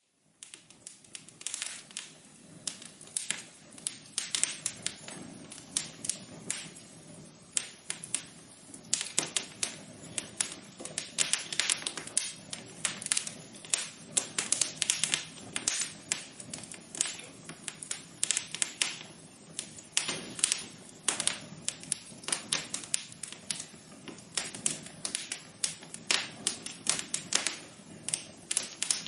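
Wood fire crackling in a fireplace: irregular sharp snaps and pops, coming in clusters, over a faint steady background noise.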